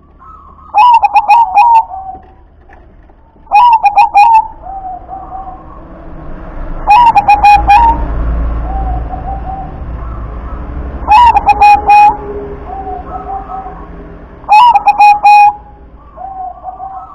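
Zebra dove (perkutut) singing its cooing song. There are five phrases about three to four seconds apart, each a loud, rapid stuttering burst followed by softer trailing coos.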